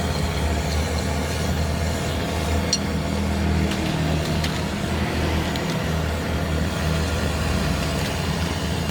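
Steady low engine rumble with a few light clicks over it.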